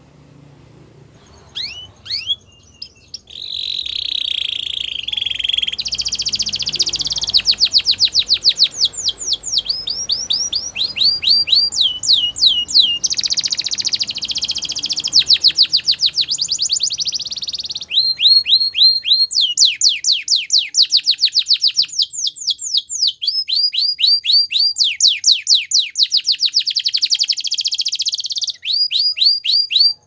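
Domestic canary singing: a few short chirps, then from about three seconds in a long, continuous song of rapid trills, each phrase a fast run of the same high down-sweeping note held for a second or two before switching to another.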